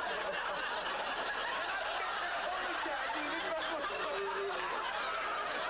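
Studio audience laughing steadily, many voices at once, in response to a risqué joke.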